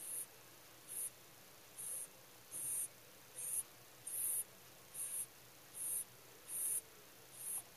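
Sleeping rabbit snoring: a short, high-pitched whistling 'soo-pee' with each breath, about ten in an even rhythm, a little more than one a second.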